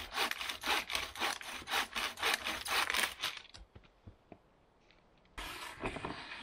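Hand saw cutting through wood, about a dozen quick rasping strokes that stop after roughly three and a half seconds. A short burst of noise follows near the end.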